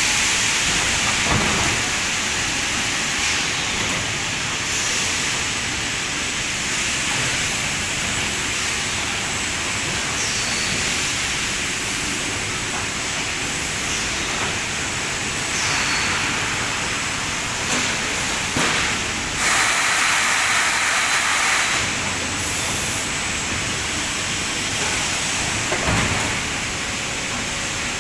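Steady hissing machinery noise from an automatic sheet-metal punching and forming press line, with several louder hissing stretches, the longest about two-thirds of the way through, and a few faint thuds.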